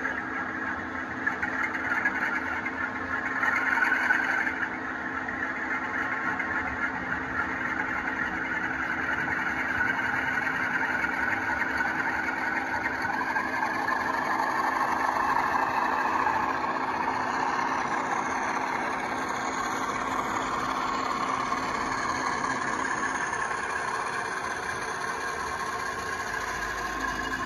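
The DCC sound decoder in an OO gauge model of a Rail Operations Group diesel locomotive playing a diesel engine running sound through the model's small speaker as it hauls coaches along the track. It is a steady drone with a steady hum, briefly louder a few seconds in.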